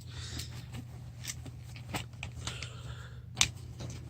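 Two box cutters being tucked into a fabric bag pocket: rustling and scattered light clicks, with one sharp click about three and a half seconds in.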